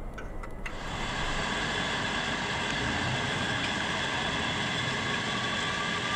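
Low car-cabin rumble with a couple of clicks, then an abrupt switch less than a second in to a steady rumble of idling fire apparatus engines beside a burning pickup truck, with several steady high whining tones over it.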